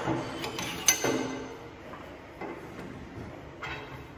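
Steel parts of a portable line boring machine clinking and knocking as the boring bar and centering cone are worked into the bucket lug's bore. A sharp metallic clink rings briefly about a second in, followed by lighter scrapes and taps.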